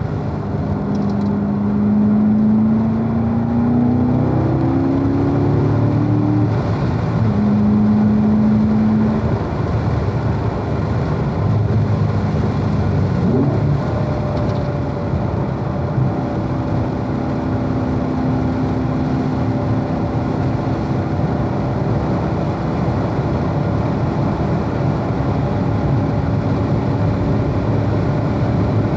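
Corvette V8 engine heard from on board under way, its note rising in pitch over the first several seconds, then holding a steady note through the second half, over constant wind and road noise.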